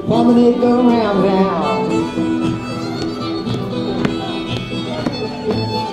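Live contra dance band playing a dance tune: fiddle leading over acoustic guitar and banjo.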